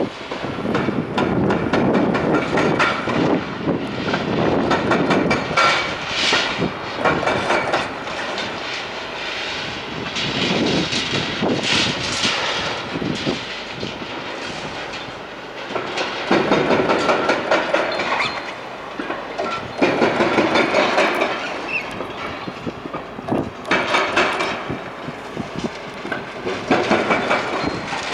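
Building demolition: continuous crunching and clattering of rubble and metal as machinery works the structure, with louder patches every few seconds.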